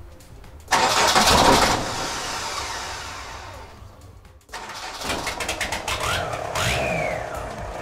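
VW 1.9 TDI AFN diesel engine in a T3 Syncro being started for the first time. It catches suddenly and loudly about a second in, runs down and cuts off abruptly after a few seconds, then is started again and runs with a fast diesel clatter while its speed rises and falls.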